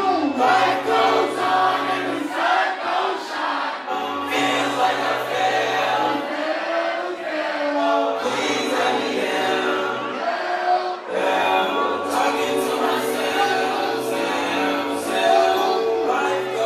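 Hip-hop song played loud through a concert PA: a sung, melodic vocal over a bass line that comes in two-second phrases with short gaps.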